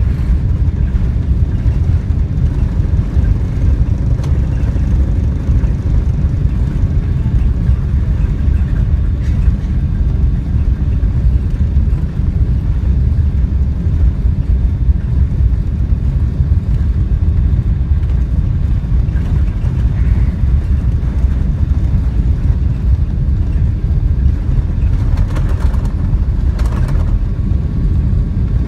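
Steady low rumble of Airbus A380 cabin noise, the engines and airflow droning evenly, heard from inside the cabin. A few faint clicks come near the end.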